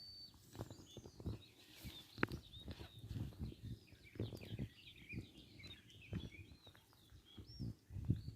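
Small birds singing and chirping, many short twittering calls through the whole stretch, with scattered soft knocks and rustles close by.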